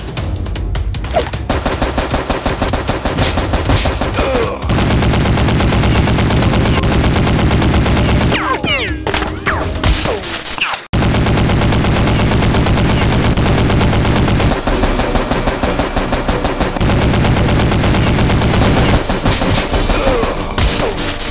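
Rapid machine-gun fire in long, continuous bursts, with a brief break about eleven seconds in.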